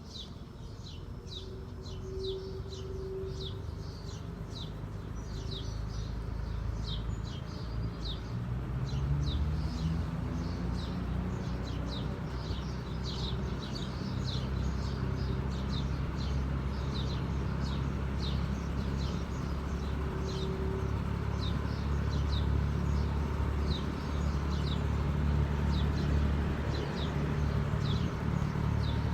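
Vintage Dominion 20-inch box fan's electric motor spinning up, its hum rising in pitch and loudness over the first ten seconds or so, then running steadily. Birds chirp rapidly and repeatedly throughout.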